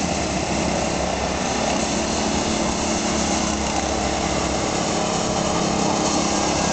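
Small engines of children's go-karts running steadily on the track.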